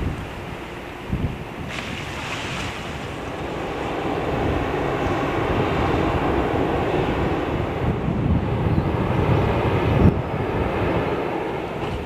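Strong, gusty sea wind buffeting the microphone over a wash of harbour water, rising and falling in gusts with a sharp bump about ten seconds in.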